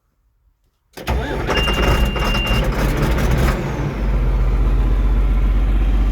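Farm tractor engine cranking and catching, with a high steady beep for about a second as it starts, then settling into an even idle.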